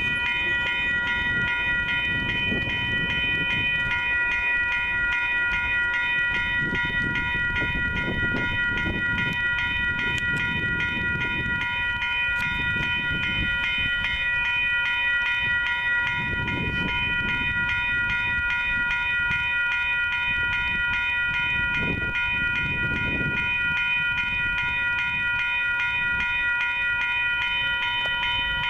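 Railroad grade-crossing warning bell ringing continuously in rapid, even strikes while the gates are down ahead of an approaching train, with low rumbling swells of wind on the microphone underneath.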